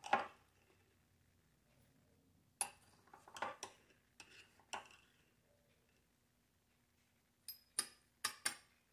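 Small teaspoon clinking as sugar is spooned out: light, scattered clinks, with several close together near the end.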